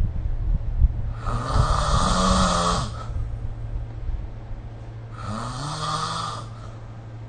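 A person snoring in sleep: two long snoring breaths about four seconds apart, each with a rising drone under a hiss, over a steady low hum.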